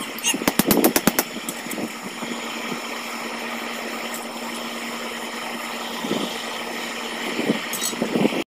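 A quick run of about eight sharp metallic clinks in the first second, over a steady hum like a small motor running, with a few fainter knocks near the end before the sound cuts off abruptly.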